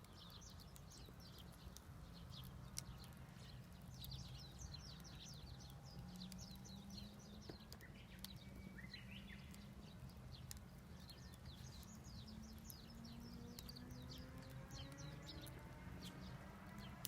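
Small birds chirping, many quick high chirps in a steady stream, over a faint low hum. In the second half a low drone slowly rises in pitch, and a few sharp clicks come now and then.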